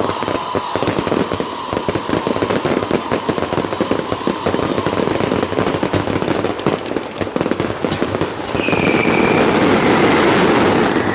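Fireworks going off in a continuous barrage of dense, rapid crackling and popping, growing louder for the last few seconds.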